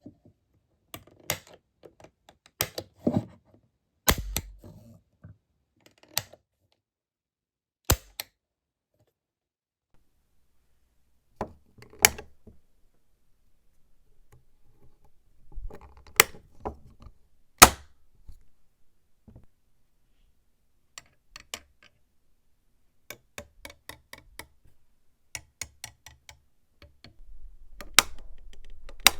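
Denix non-firing replica percussion dueling pistol being handled: a series of sharp mechanical clicks and snaps at uneven intervals, with occasional light knocks.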